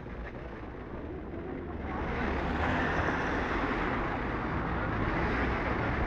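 Steady outdoor street noise, a low rumbling hiss that grows louder about two seconds in.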